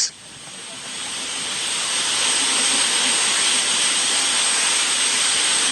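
A steady rushing noise with no pitch, like wind or distant jet roar. It swells over the first couple of seconds, then holds, and cuts off abruptly at the very end as a short electronic beep-test beep starts.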